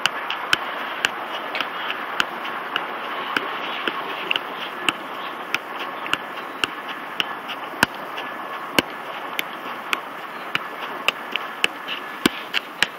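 A football being juggled: a steady run of sharp thumps, about two a second, as the ball strikes foot and knee, over steady background hiss.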